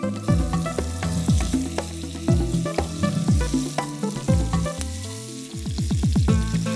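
Background music with a steady electronic beat and a quick drum roll near the end, over marinated chicken pieces sizzling as they fry in ghee in a non-stick pan.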